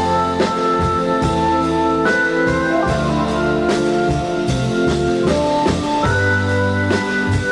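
Background music: an instrumental piece with bass, sustained chords and a steady drum beat.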